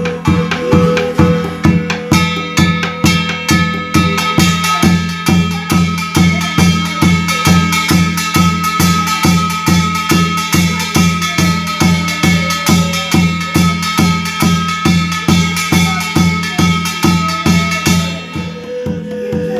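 Korean barrel drum (buk) beaten steadily with a mallet and stick, about three strokes a second, with the brass gongs mounted on its frame adding bright ringing; a steady high note is held over the beat, and the beating weakens near the end.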